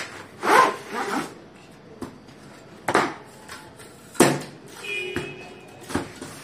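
Handling noise of a tripod light stand being slid out of its cardboard box and its legs unfolded: a handful of short clacks and scrapes of the stand and box, with quiet between them.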